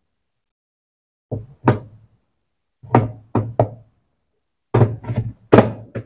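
Hand slapping down on the top of a Brastemp 11 kg washing machine's plastic agitator, about eight sharp knocks in three quick bunches. The blows drive the agitator down onto the drive shaft to seat it fully.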